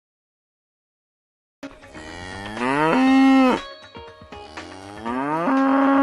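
After about a second and a half of silence, a cow moos twice: two long moos, each rising in pitch and then held steady.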